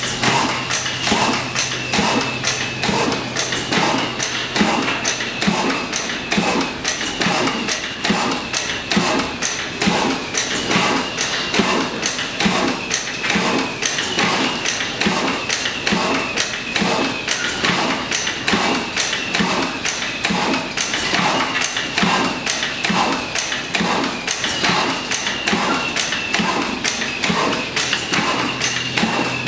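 Old stationary engines running in an engine hall: a steady, even knocking of a few beats a second, with a thin high whine held over it that breaks off now and then.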